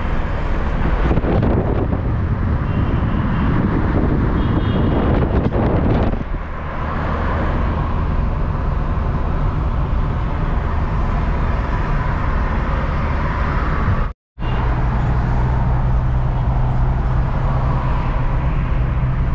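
Steady engine and road noise heard inside a moving car, with a brief gap of silence about fourteen seconds in.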